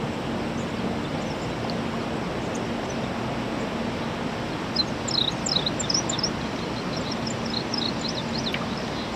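Steady outdoor background noise with a faint low hum, and a small bird calling in a run of short, high chirps from about halfway through.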